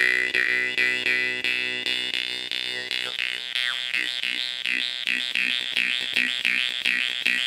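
Makhtsiyev jaw harp being played: a buzzing drone with its trigger plucked about twice a second, quickening to about four plucks a second from about three seconds in, while a melody of overtones shifts above it as the mouth changes shape.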